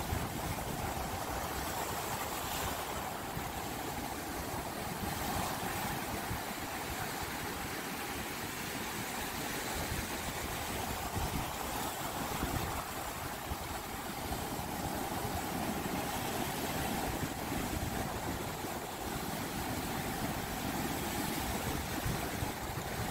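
Ocean surf washing over a rock shelf and up the sand, a steady rushing noise that swells gently.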